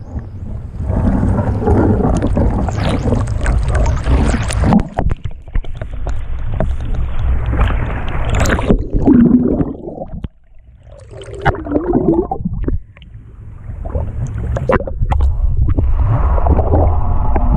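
Lake water splashing and sloshing against an action camera riding at the waterline, with a low rumble of wind on the microphone. Near the end the camera goes under, and the sound turns to muffled underwater gurgling.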